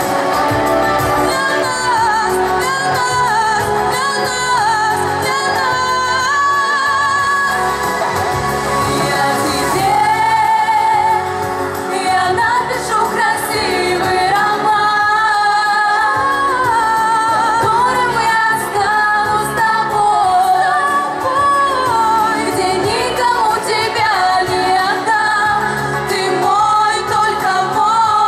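Three women singing a pop song together into handheld microphones over an instrumental backing, amplified in a large hall, their voices wavering with vibrato on held notes.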